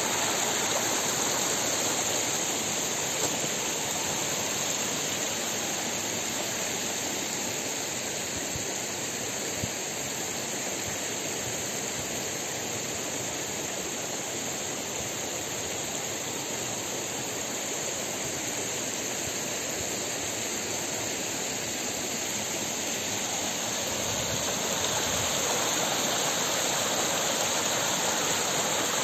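Shallow mountain stream flowing over rocks and small cascades, a steady wash of running water that grows a little louder near the end.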